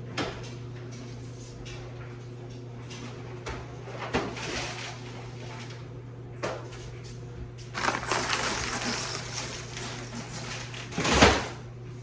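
Handling noises as grocery items and packaging are moved about: a few knocks, a stretch of rustling, and a loud thump near the end, over a steady low hum.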